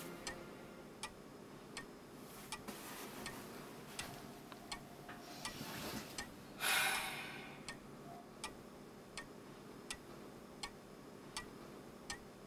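Faint, steady ticking of a clock, one sharp tick about every three-quarters of a second. About seven seconds in comes a single short, louder rush of noise.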